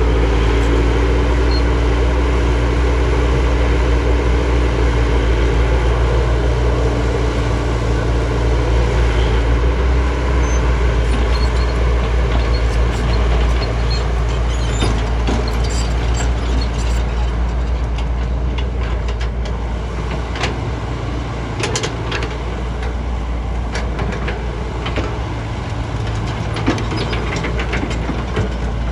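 JCB JS205 tracked excavator's diesel engine running steadily, with scattered clicks and knocks during the second half.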